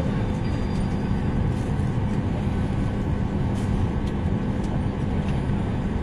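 Airliner cabin noise: a steady low rumble of engines and air-conditioning, with a faint constant hum.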